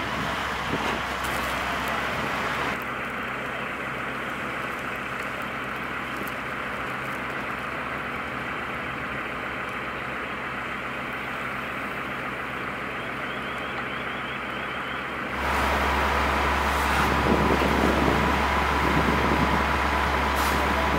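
Fire-truck engines running steadily, a continuous mechanical drone; after a cut about fifteen seconds in, a nearer engine drone comes in louder, with a steady high tone over it.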